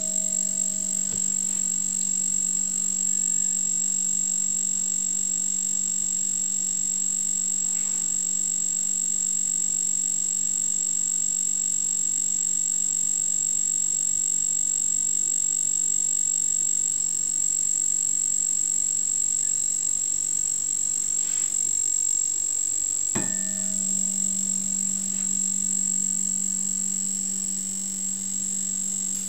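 General Radio Strobotac Type 1531 tube stroboscope flashing rapidly: a steady electrical buzz with a constant high-pitched whine above it. About 23 s in there is a click and the buzz comes back at a slightly changed pitch.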